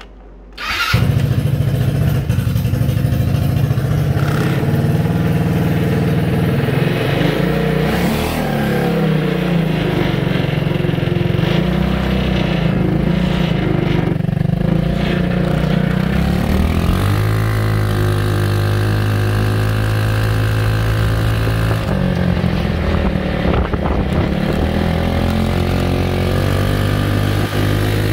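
Hammerhead Twister go-kart engine started with the key, catching about a second in, then running as the kart is driven off, its pitch rising and falling several times with the throttle.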